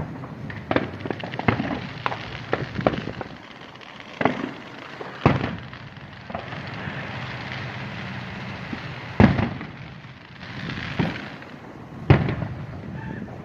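Aerial fireworks display: a quick run of sharp cracks at first, then big booming shell bursts about five, nine and twelve seconds in, with hissing crackle between them.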